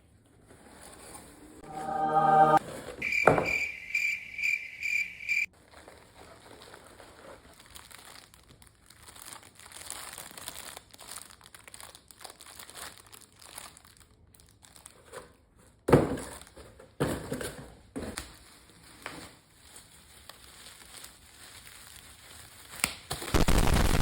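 Packaging being handled, crinkling and rustling, with a few sharp clicks. About two seconds in there is a brief pitched sound, then a high tone beeps rapidly for about two seconds. A loud steady rush of noise starts just before the end.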